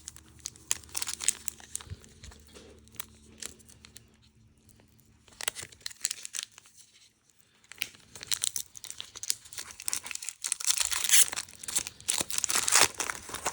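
Foil booster pack wrappers crinkling and being torn open: scattered crackles with a lull a few seconds in, growing denser and louder from about eight seconds in.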